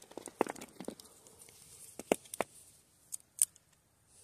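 Footsteps crunching on the rocks and gravel of a riverbank, busiest in the first second, then a few sharp clicks and knocks before it quietens near the end.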